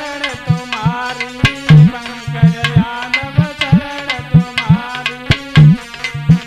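Indian devotional folk music: a hand drum plays a steady rhythm, its deep strokes sliding up in pitch, under a wavering melodic line.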